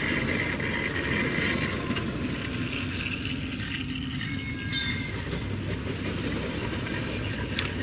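Battery-powered toy trains running on plastic track, their small motors and wheels making a steady whirring rattle.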